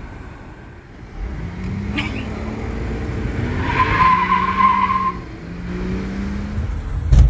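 A car engine starts running about a second in and revs, its pitch holding steady and then shifting in steps. A high squeal sits over it for a second or so in the middle, and a sharp knock comes near the end.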